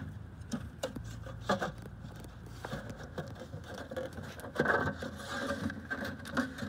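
Handling noise from a phone being moved about: scattered scrapes and light taps, a louder rubbing stretch about four and a half seconds in, over a low steady rumble.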